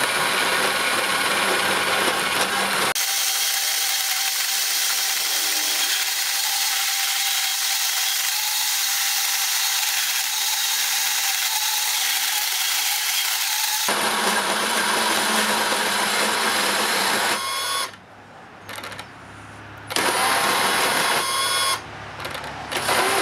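Makita XGT PB002G 40V cordless portable bandsaw cutting through heavy quarter-inch steel strut channel at low speed with a badly worn blade. A long middle stretch is sped up and sounds higher pitched. Near the end the saw cuts out and starts again twice as the worn blade jams in the steel.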